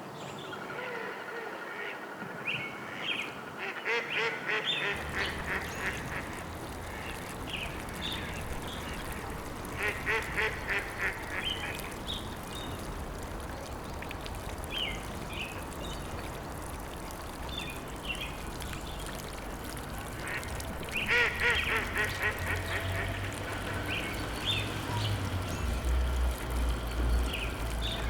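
Birds calling in bursts of rapid, repeated notes, with scattered shorter calls between them, over a steady low rumble that swells near the end.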